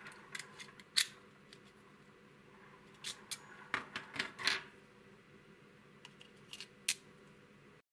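Scattered light clicks and taps of a soldering iron's metal tips and plastic parts being handled and set down on a wooden tabletop, the sharpest about a second in and a quick run of them in the middle.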